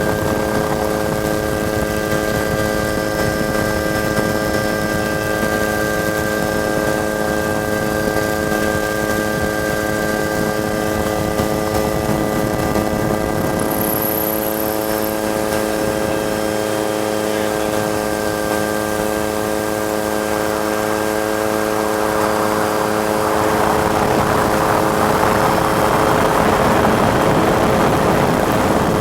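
Helicopter turbine and rotor running steadily, a constant hum of several fixed tones. Roughly three-quarters of the way in, a louder rushing noise rises over it.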